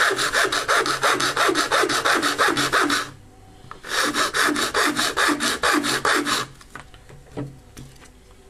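Round file rasping back and forth on a black plastic power-adapter housing in quick strokes, about five a second, cutting a notch for the cable. The filing pauses briefly about three seconds in, resumes, and stops about six and a half seconds in, followed by a few faint clicks as the plastic case is handled.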